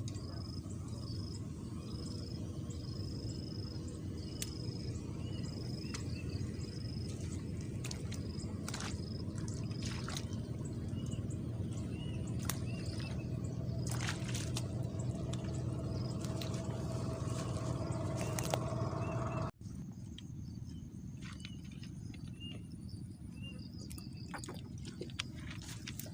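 Outdoor ambience at a reservoir bank: a steady low rumble with a run of short, evenly repeated high chirps and fainter calls, plus scattered clicks. The sound drops out for an instant about two-thirds of the way through.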